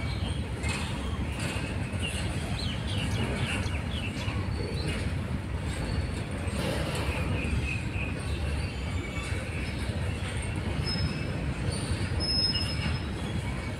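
Goods train of covered wagons rolling past: a steady rumble of wheels on rail. Short high wheel squeals come and go in the first half.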